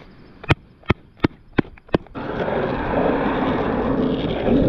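A sneaker struck hard five times in quick succession, about three knocks a second, followed by a steady rushing noise.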